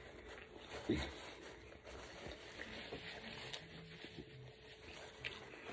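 Faint chewing and mouth sounds of someone eating a bagel sandwich, with a short soft sound about a second in.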